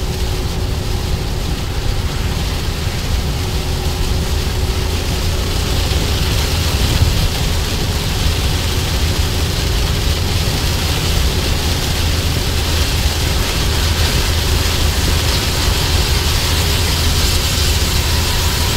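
Cabin noise of a 2003 Honda Element driving at highway speed in heavy rain: a steady low rumble of road and engine with a hiss of tyres on the wet road and rain on the car, the hiss growing stronger about six seconds in.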